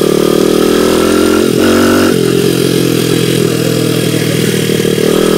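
Dirt bike engine running steadily while riding. Its note changes briefly about a second and a half in, then settles again.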